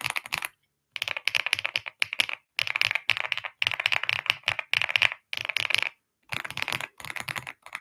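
Mechanical keyboard being typed on fast: rapid sharp key clicks in several bursts, broken by short complete silences about half a second in and again about six seconds in.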